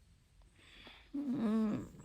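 A woman's drawn-out, wordless groan of reluctance, pitched and sliding slightly down, starting about a second in after a soft breath.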